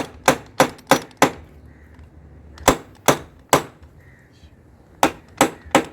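Hammer driving a nail into wood: three runs of quick, light blows, about three a second, with short pauses between the runs.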